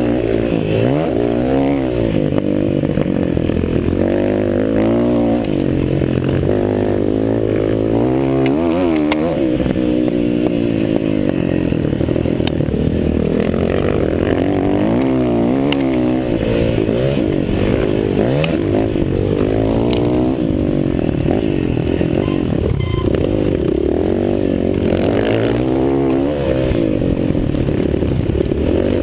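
Several motocross bikes racing, their engines overlapping and revving up and down over and over as the riders accelerate and shift.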